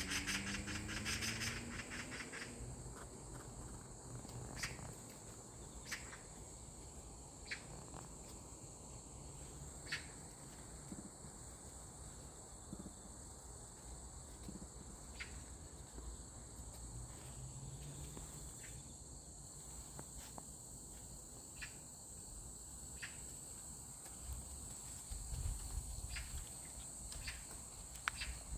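Faint, steady high-pitched chirring of insects, with scattered faint clicks. A rapid pulsing buzz sounds during the first couple of seconds.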